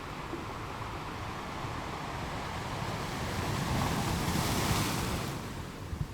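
Sea waves breaking on a rocky shore: the surf swells to a crash about four to five seconds in, then washes back and fades.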